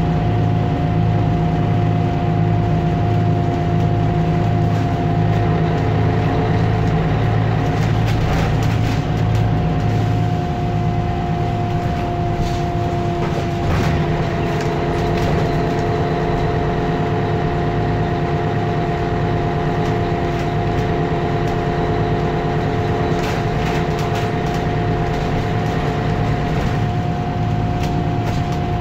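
Mercedes-Benz O530G Citaro articulated bus under way, heard from inside: its diesel engine makes a steady drone, with a constant high whine running over it.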